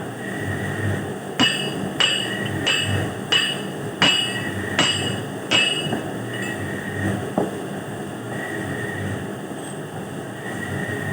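Hammer striking a metal part seven times, about one and a half blows a second, each blow ringing, over a steady background rumble.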